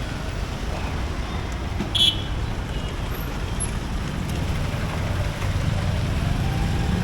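Busy street traffic: a steady rumble of passing motor vehicles, with a short sharp high sound about two seconds in and an engine rising and falling in pitch near the end.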